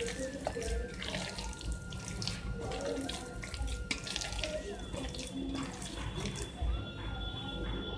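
A bare hand squeezing and kneading wet raw chicken mince in a stainless steel bowl: a run of irregular wet squelches and squishes.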